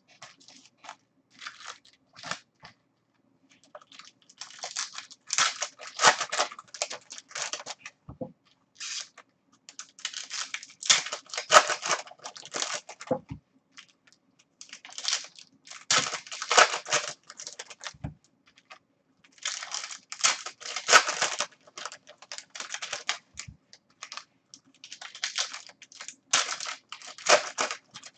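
Foil and plastic trading-card pack wrappers crinkling and tearing as packs are handled and opened, in several bouts of close crackling with short pauses between, over a faint steady hum.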